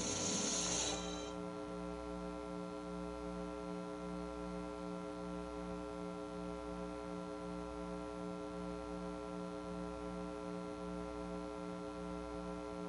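A steady electronic-sounding hum of several fixed tones with a soft, even pulse about two and a half times a second; a brief hiss fades out about a second in.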